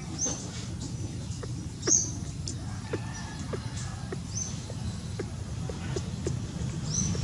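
Short, high-pitched chirping calls from a small animal: four of them, about two seconds apart, over scattered light clicks and a low hum.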